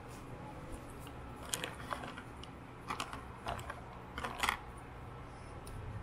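Small handling sounds of a pen and a paper notebook on a desk: a handful of short light clicks and brief rustles, scattered irregularly, over a steady low hum.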